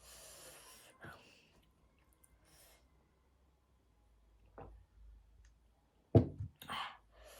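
Close-miked breathy exhale, like a sigh, then a few faint mouth or tabletop clicks. About six seconds in comes a sharp knock, the loudest sound, followed by another breathy sound.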